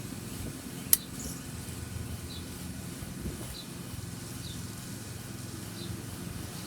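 Steady low outdoor background noise with faint, short, high chirps about once a second, like a small bird or insect. There is a single sharp click about a second in.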